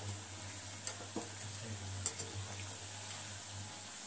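Potato-and-onion pakoras in gram-flour batter deep-frying in oil in a steel pan: a steady sizzle. A few light clicks in the first half come from a wire skimmer touching the pan.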